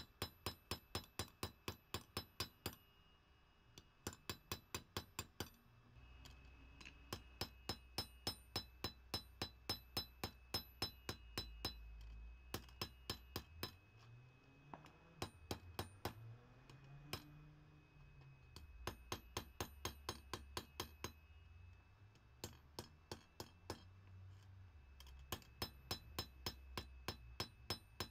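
Hand hammer striking hot leaf-spring steel on an anvil: quick, even blows at about five a second, each with a bright metallic ring, in runs broken by short pauses. A low hum comes in underneath after about six seconds.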